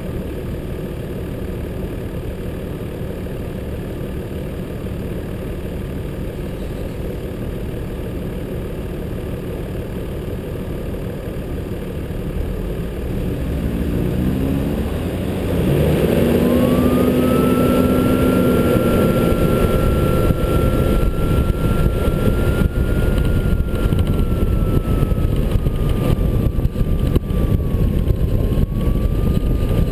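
A 4WD's engine running steadily at low speed, picked up by a camera mounted on the outside of the vehicle, then pulling away with rising engine notes about halfway through. From there it is louder, with wind buffeting and a steady high whine that wavers near the end.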